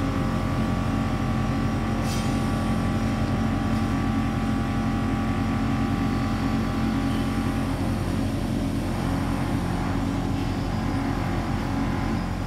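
Teksam SPSM1600 concrete manhole machine running with a steady mechanical hum, a click about two seconds in; the higher part of the hum eases after about eight seconds.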